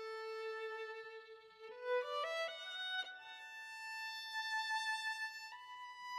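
Background music: a solo violin melody. It holds a long low note, climbs in a quick run about two seconds in, then sustains higher notes with vibrato, stepping up once near the end.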